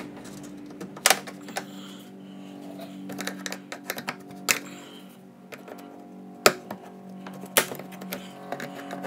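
Sharp, scattered clicks and taps of a pick and screwdriver working plastic push clips out of a car's plastic underbody panel, over steady background music.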